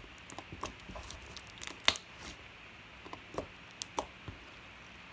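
Glitter slime being squished and poked by hand: a string of small irregular clicks and pops, the sharpest about two seconds in.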